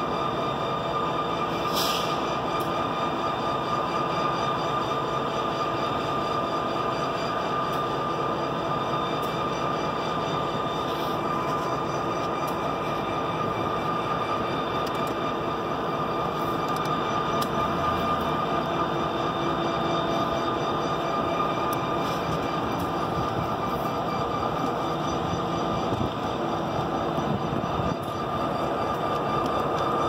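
EMD geep diesel-electric locomotives idling together: a steady engine drone with a high, even whine on top.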